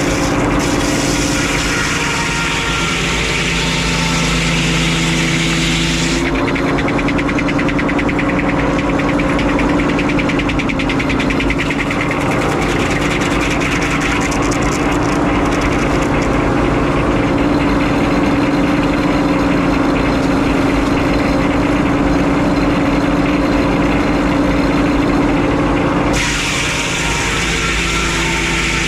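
Sawmill power-unit engine running steadily. About six seconds in its sound changes to a denser, rapidly pulsing note with less hiss, and it changes back near the end.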